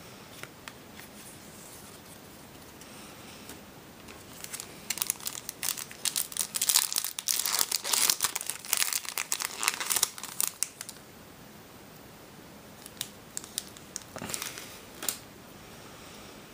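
Foil Yu-Gi-Oh booster pack wrapper crinkling and tearing as it is ripped open by hand. There are a few seconds of dense crackling about a third of the way in, then a few scattered crinkles near the end.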